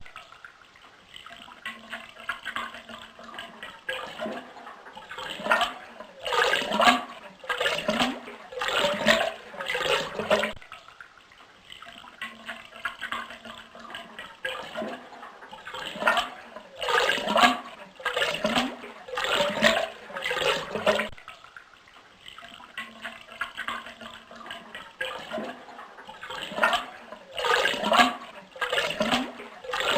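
Toilet flushing, repeated three times about every eleven seconds. Each flush starts faint, builds into loud rushing surges about a second apart for several seconds, then fades.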